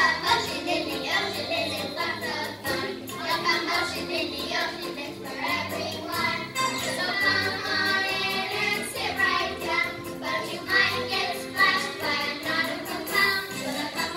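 A group of children singing a song together over musical accompaniment, heard through a hall's sound system.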